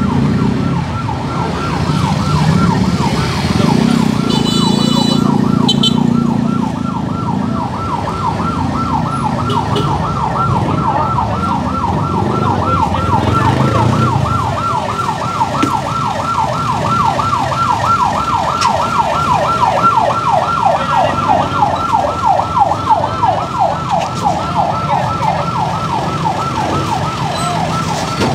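Electronic siren in a rapid yelp, its pitch sweeping up and down several times a second over a low street rumble.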